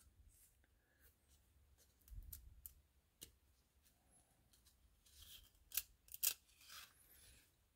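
Faint, scattered clicks and light rustling of 1994 Score baseball cards being handled between the fingers and flexed where two cards are stuck together. A few clicks come about two seconds in, and more between five and seven seconds in.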